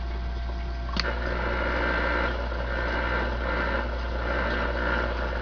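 DAK Mark 9 CB radio's speaker hissing with receiver static on a channel with no station coming in, over a steady low hum, with a single click about a second in.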